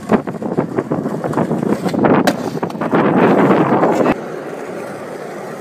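Skateboard wheels rolling over rough asphalt, with scattered clicks and knocks from the board. The rolling cuts off suddenly about four seconds in, leaving a quieter steady hiss.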